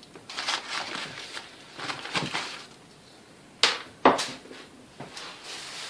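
Small metal mixer parts and tools being handled on a workbench: soft shuffling and clinking, then two sharp knocks about half a second apart a little past the middle as parts are set down.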